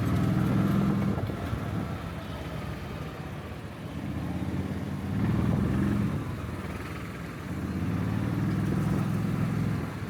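An engine running, its steady low hum swelling louder three times, about the start, midway and again near the end.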